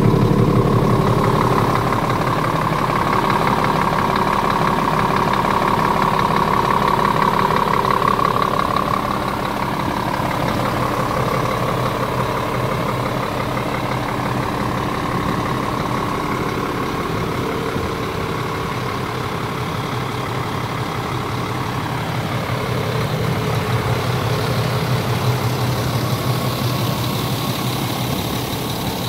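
Scania R450 truck's 13-litre inline six-cylinder diesel idling steadily. A high whine sits over the engine for the first nine seconds or so, then fades.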